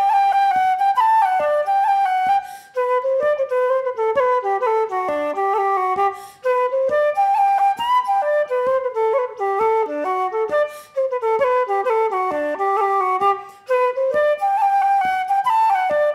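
Solo wooden Irish flute playing a quick hornpipe melody, with brief gaps every few seconds.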